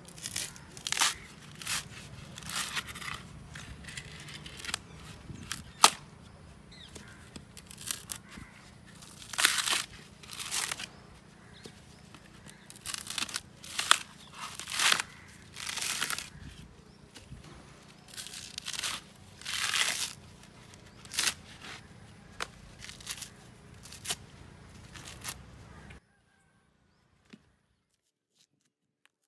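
Dry coconut husk being ripped off by hand on an upright iron bar (palugu) fixed in the ground: repeated rasping tears of coconut fibre, one after another, with a sharp click about six seconds in. The sound cuts off to near silence near the end.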